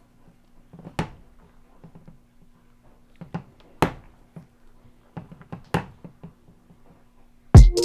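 Handheld micropipette clicking as its plunger is pressed to dispense extraction solution into a rack of small tubes: about five sharp clicks spaced a second or so apart, over a faint steady hum. Electronic music with heavy drum hits comes in loudly near the end.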